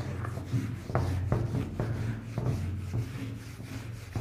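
Whiteboard duster wiping across a whiteboard in a series of short rubbing strokes, over a steady low hum.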